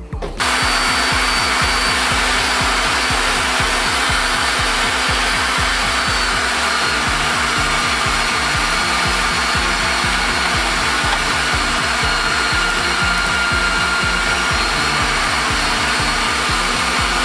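Electric meat grinder running steadily, grinding fat through a coarse plate; the motor starts about half a second in.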